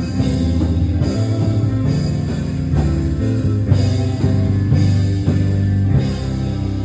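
Live band music with bass guitar, electric guitar and a drum kit playing a steady beat.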